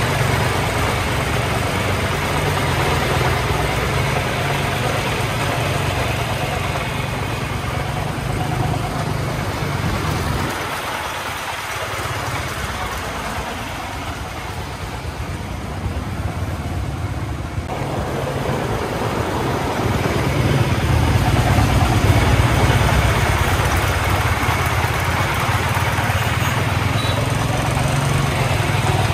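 The 24 hp single-cylinder diesel engine of a loaded three-wheeled công nông truck running as it drives, with tyre and road noise. The engine sound drops back for several seconds in the middle, then returns louder near the end.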